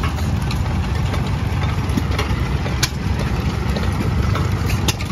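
Antique stationary flywheel gas engines running, a steady low rumble with a few sharp clicks or pops, one just before three seconds in and one near the end.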